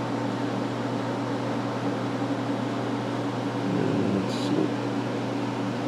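Steady whir of a running fan with a low, even hum under it.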